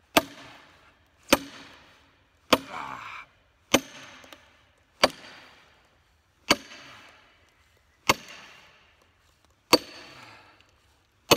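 Sledgehammer blows on a steel splitting wedge driven into a hard ash log: nine sharp metallic strikes, about 1.2 s apart at first and slowing to about 1.6 s apart, each ringing briefly.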